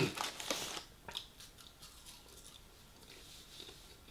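Close-miked chewing, with wet mouth clicks, as someone eats a mouthful of food. Loudest in the first second, then fainter scattered clicks.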